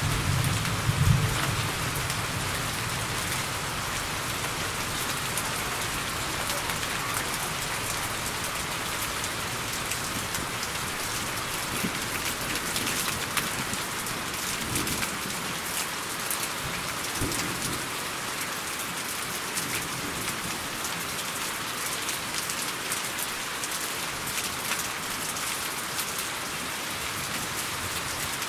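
Steady rain, an even hiss with scattered sharp drop ticks. A low rumble of thunder dies away in the first two seconds.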